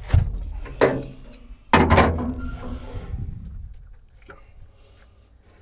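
A few sharp knocks and scrapes of a car battery being handled in an excavator's steel battery compartment while its cable clamp is fitted to the post, the loudest about two seconds in.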